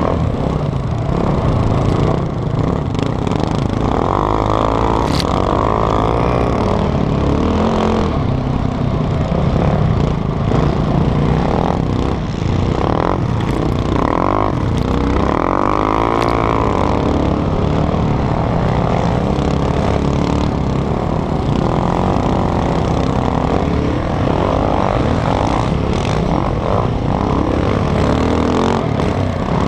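Sport quad (ATV) engine running hard under the rider, revving up and falling back again and again through the straights and corners of a dirt track.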